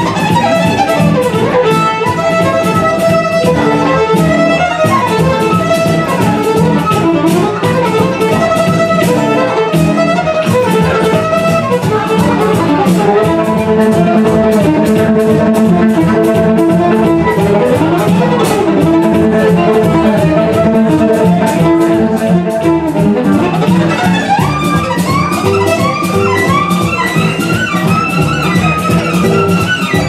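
Violin playing a fast gypsy-style tune in quick bowed runs over a low plucked accompaniment. From about the last quarter onward the violin repeats short upward slides.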